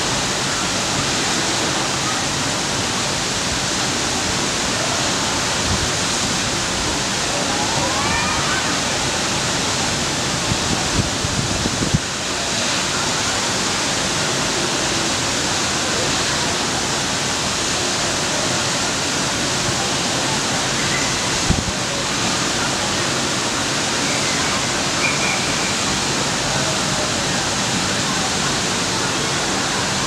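Steady rushing of water from a resort pool's waterfall and water features, with faint distant voices and a couple of brief knocks.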